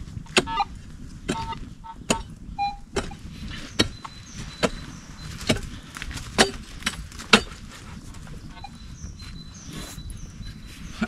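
Digging with a small hand tool at the bottom of an earth pit: sharp strikes into the soil about once a second, stopping about seven and a half seconds in.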